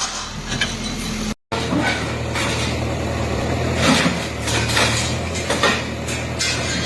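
Heavy bulldozer engine running steadily, with several sharp clattering crashes of demolition debris breaking and falling. The sound cuts out for a moment about one and a half seconds in.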